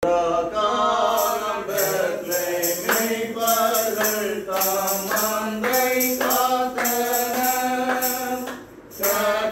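A group of voices singing a Christmas carol together, with a tambourine struck about twice a second.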